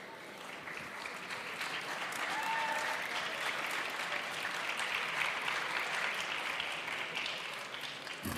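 Audience applauding. The clapping swells over the first two seconds and dies away near the end.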